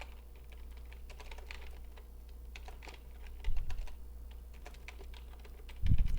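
Typing on a computer keyboard: a run of light, irregular key clicks, with two louder dull thumps, one about halfway through and one near the end.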